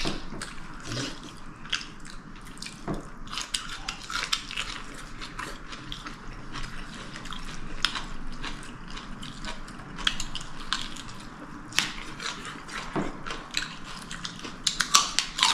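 Close-up eating sounds: irregular wet clicks and smacks of someone chewing food, with an occasional sharper tick.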